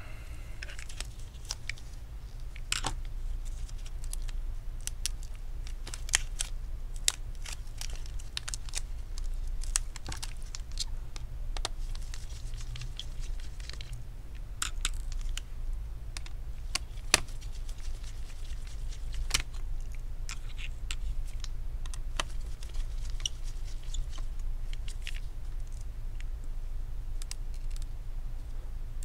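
Scattered small clicks, taps and rustles of plastic laptop parts being handled and worked apart by hand, over a steady low hum.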